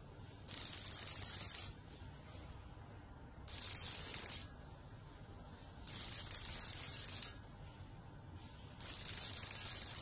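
Small vibration motor of a concealed cheating receiver, lying in a ceramic bowl, buzzing and rattling against it in four pulses of about a second each. Four pulses signal the result 'three white' in the xóc đĩa coin game.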